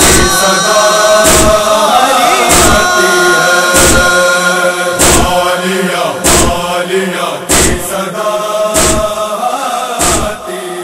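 Noha chorus holding a wordless chanted refrain, with steady beats of matam chest-beating about every one and a quarter seconds. Both ease off somewhat near the end.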